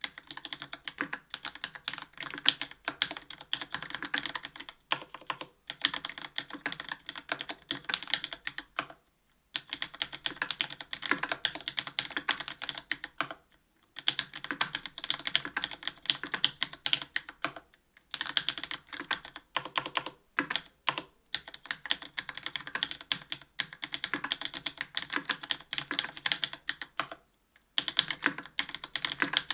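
Mechanical keyboard typing: Cherry MX Black linear switches on an aluminium plate, struck fast with GMK Modern Dolch Light keycaps, in runs of rapid clacks with brief pauses between them.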